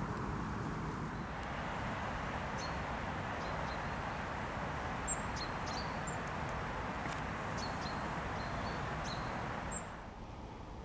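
Outdoor ambience: a steady low rush with scattered short, high bird chirps now and then.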